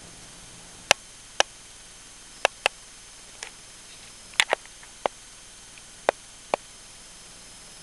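About ten sharp, short clicks at irregular intervals over a steady background hiss.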